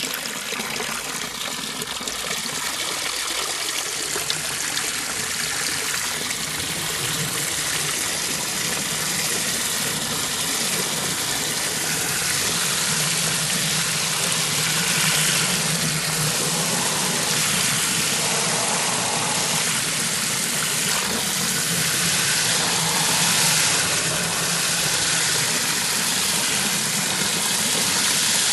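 Water spraying from a garden hose onto plants, a steady hiss that grows slightly louder over the stretch.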